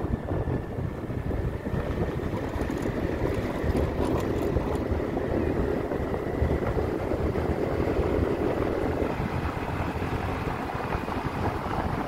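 Road noise from a vehicle riding along a rough, dusty road: a steady low rumble of engine and tyres, with wind buffeting the microphone and a faint steady whine.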